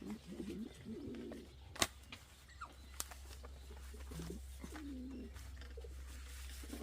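A bird cooing: low, wavering calls near the start and again a little past the middle. A sharp click about two seconds in is the loudest sound, and a second click comes a second later.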